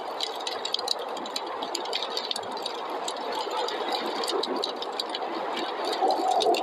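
Wood fire crackling in a fireplace, with many quick sharp pops and snaps over a steady rushing of snowstorm wind, which grows louder near the end.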